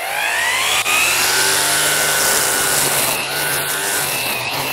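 Hyoja cordless battery string trimmer spinning up, its whine rising in pitch over the first second, then running steadily at full speed as its nylon line cuts grass.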